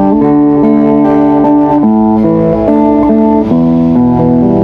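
APX-model acoustic-electric guitar played through a small 10-watt Cowboy V10G practice amp: a melody over chords, with notes changing every third to half second and ringing on.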